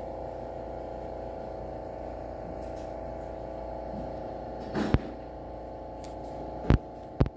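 A steady hum of several even tones, broken by three sharp knocks: one about five seconds in and two close together near the end.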